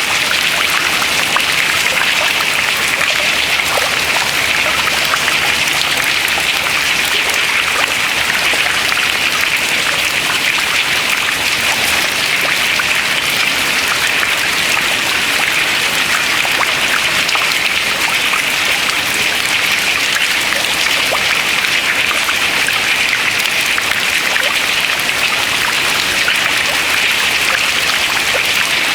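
Water dripping from ice into the water below: a steady, dense patter of many small drops with no let-up and no large crash.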